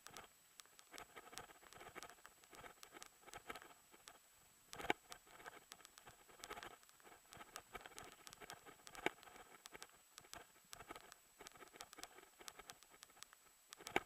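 Faint, irregular clicking and rattling of a mountain bike rolling over rock and dirt trail, with two sharper knocks about five and nine seconds in and a faint steady high whine underneath.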